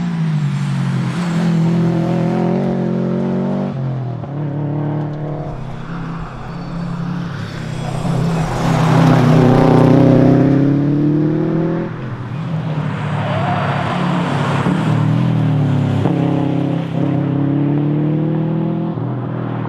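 Subaru WRX STI's turbocharged flat-four engine driven hard, heard from inside the car. Its pitch climbs through the revs and drops at each gear change, several times over. It is loudest under full throttle about eight to eleven seconds in, then eases and pulls up again.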